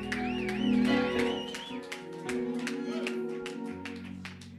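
Background worship music: sustained chords over a steady beat of about three sharp hits a second. A wavering high voice sounds over it in the first couple of seconds, and the music fades lower toward the end.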